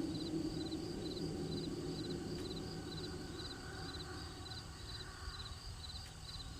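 Crickets chirping in quick triplets, about two a second, over a steady high insect trill, with a low hum that fades out over the middle of the clip.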